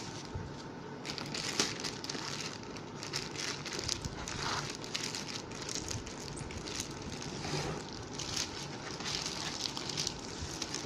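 Laptop packaging being handled and unwrapped, with irregular crinkling and rustling.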